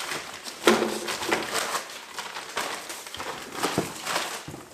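Hands rummaging through a cardboard box being unpacked: irregular rustling and crinkling of packaging with scattered knocks and clicks of items being handled, the sharpest knock just under a second in.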